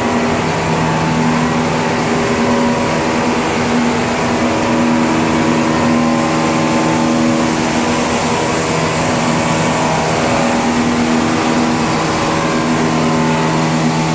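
Comexi F+ ten-colour flexographic printing press running at production speed, about 420 m/min: a loud, steady mechanical hum with several held tones over a constant rush of noise.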